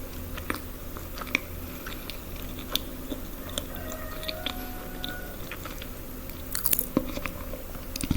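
A person chewing and biting food close to the microphone, with sharp crunches scattered through and a quick cluster of them near the end.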